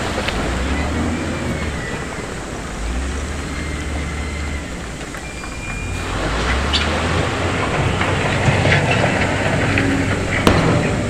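Heavy diesel earthmoving machinery running under load. From about six seconds in, knocks and clatter grow louder, with one sharp clank near the end.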